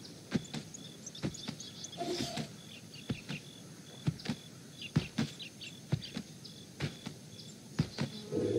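Small birds chirping, with sharp clicks or taps coming in pairs about once a second. A low steady hum comes in near the end.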